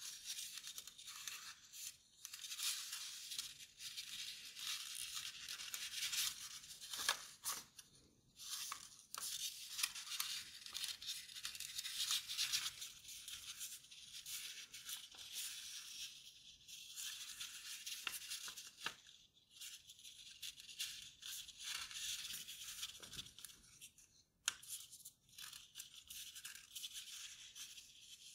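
Kraft paper rustling and crinkling as it is folded and creased by hand, with a few sharp clicks as folds are pressed down.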